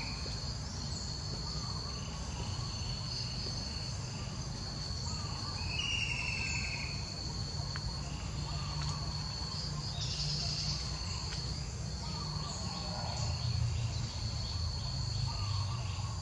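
Forest ambience: a steady, high-pitched insect drone, with a few short chirps at scattered moments and a low rumble underneath.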